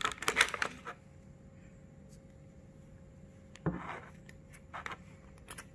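Handling noise as a flashlight is lifted out of a clear plastic packaging tray: a quick run of clicks and rattles at the start, then quiet room tone broken by a short scrape about four seconds in and a couple of small clicks near the end.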